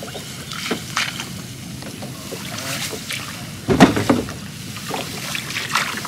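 Small boat on the river being worked by hand: water lapping and scattered knocks against the boat, with one louder thud about four seconds in.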